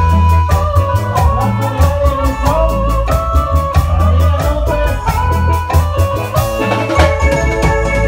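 Live band playing a chilena: an electronic keyboard carries the melody over a heavy bass line and a regular drum beat.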